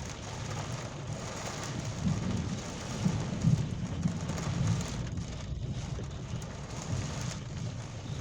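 Rain falling steadily in a thunderstorm. A low rumble swells between about two and five seconds in.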